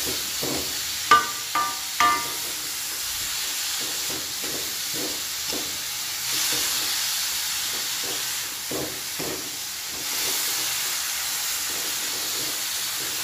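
Shredded chayote sizzling steadily in an aluminium wok as a coconut-shell ladle stirs and scrapes it. Three short ringing knocks come a little after one second in.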